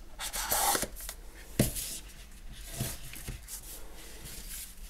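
Cardboard product box being handled: the sleeve slides with a papery rubbing, then there is a sharp tap about a second and a half in and a couple of softer knocks as the box is put aside.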